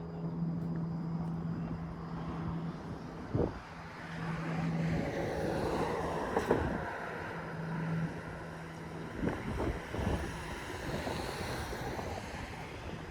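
Riding noise from an InMotion E20 electric unicycle: wind on the microphone and the tyre rolling on pavement, with a low steady hum that cuts in and out. There are a few short knocks, and a broad swell of noise in the middle that sounds like a vehicle passing on the road alongside.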